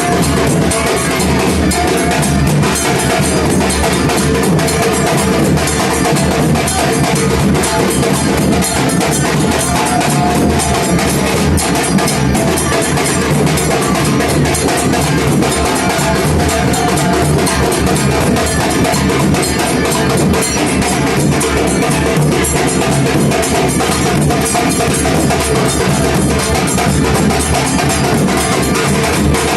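Music with loud, steady drumming and percussion.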